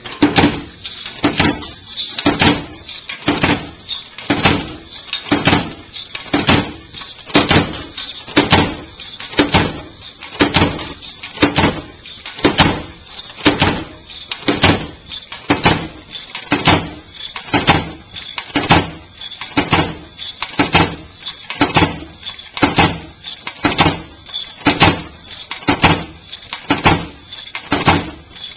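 Automated snapband machine running a production batch, feeding stainless steel strip and cutting it to length: the cutter strikes in a steady, even rhythm of just under two strokes a second, each stroke a sharp impact.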